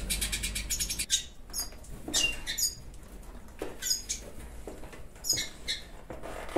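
Caged siskins chirping: a quick rattling trill at the start, then repeated short high calls, each dropping sharply in pitch.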